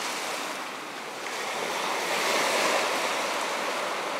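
Sea surf breaking on a pebble beach: small waves washing in over the shingle, swelling to their loudest two to three seconds in.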